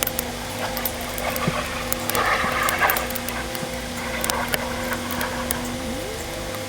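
Scattered light metallic clicks and taps of rear parking-brake shoe hardware being handled and refitted, with a louder rattling patch about two seconds in, over a steady hum.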